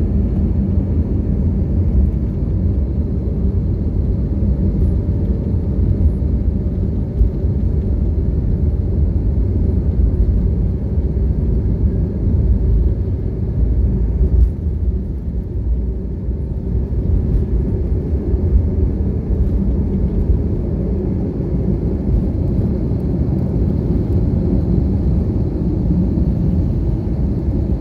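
Jet airliner cabin noise in flight: a steady, loud low rumble of engines and airflow, with a faint high whine.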